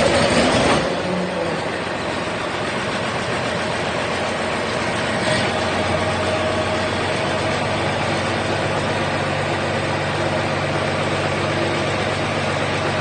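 John Deere 4840 tractor's turbocharged six-cylinder diesel engine running, louder for about the first second and then running steadily at an even speed.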